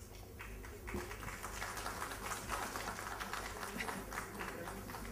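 Faint scattered clapping from an audience in an auditorium, a dense patter of small claps that swells about a second in and thins out near the end.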